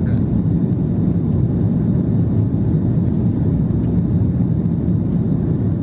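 Steady low rumble of an airliner's cabin in flight: engine and airflow noise heard from a seat by the wing.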